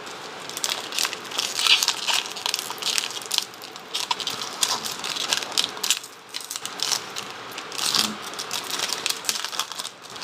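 Trading-card pack wrapper being torn open and crinkled in the hands: a dense run of sharp crackles and rustles with a short lull about six seconds in.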